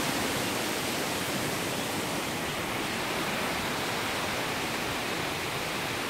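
Steady rushing of a waterfall and its stream, an even wash of water noise that holds at one level throughout.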